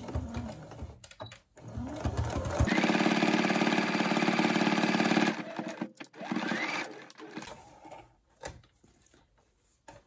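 Electric home sewing machine stitching through fabric in short runs: a steady run of about two and a half seconds starting near three seconds in, then a brief run that speeds up around six seconds. Near the end the machine stops, leaving a few light clicks.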